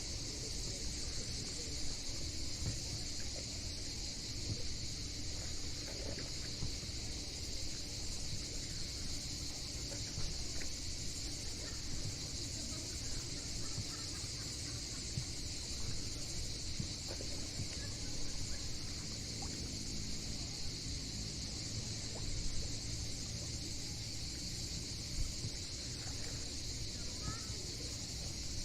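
Steady chorus of cicadas, an unbroken high-pitched buzz, over a constant low rumble.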